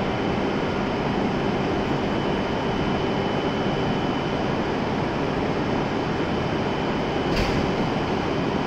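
Steady hum of an E7 series Shinkansen standing at the platform with its doors open, its air-conditioning and on-board equipment running, with a thin, high, steady tone over it. A single short click about seven and a half seconds in.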